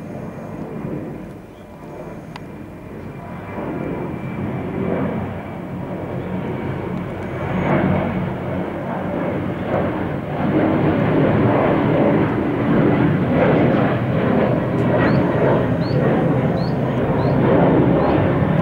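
Jet noise from a Boeing 737-800's two CFM56-7B turbofan engines as the airliner passes overhead. It is a dense rushing noise that grows steadily louder and is loudest in the second half.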